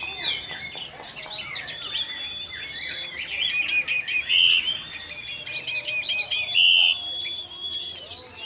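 Orange-headed thrush singing a fast, varied song of rapid chips, trills and short whistled notes: the continuous, intense 'teler' singing used as a lure to set other thrushes singing. Two louder, held buzzy notes come near the middle.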